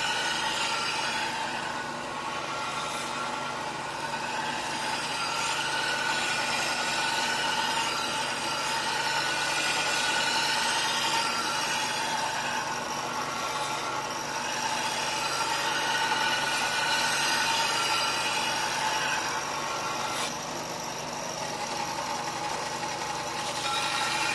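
Bench belt sander running, a steady motor whine, with the hiss of a steel blade grinding on the 120-grit ceramic belt that swells and eases every few seconds as the large curved fish-cleaver edge is pressed and rocked across it.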